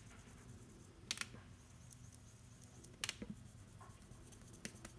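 Faint taps and scratches of a dry-erase marker tip on a whiteboard as small zigzag scribbles are drawn, with a few short clicks about a second in, around three seconds in and near the end, over a low steady hum.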